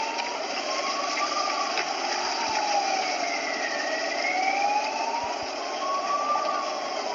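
Emergency-vehicle siren wailing, its pitch slowly rising and falling about once every four seconds, over a steady rushing background.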